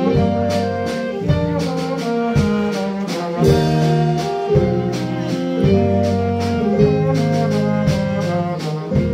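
Small jazz band playing live: trombone and two saxophones carry the tune over a drum kit, electric keyboard and guitar, with drum hits keeping a steady beat.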